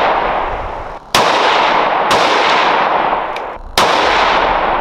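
Three gunshots at irregular intervals, a second or two apart, each a sharp crack followed by a long echoing decay.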